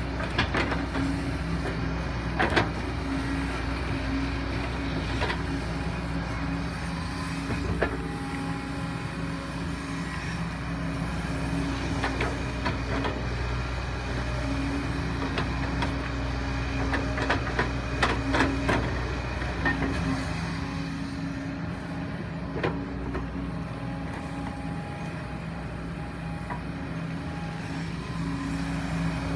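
Kobelco SK140-8 excavator's diesel engine running steadily under working load, its note shifting a little now and then. Sharp cracks and knocks come and go over it, bunched most thickly about two-thirds of the way through.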